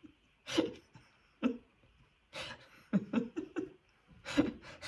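A woman laughing softly in several short chuckles with breaths between them, a quick run of them about three seconds in.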